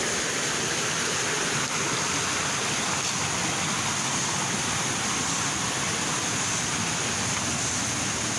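Mountain stream rushing over rocks: a steady, even wash of running water.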